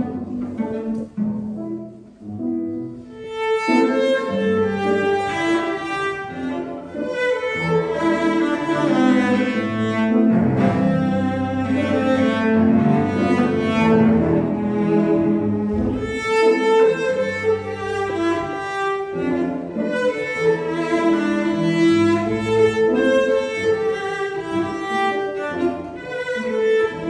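Cello and Yamaha grand piano playing classical chamber music together. The piece is thinner for the first few seconds, then fills out with fuller sustained cello lines over the piano.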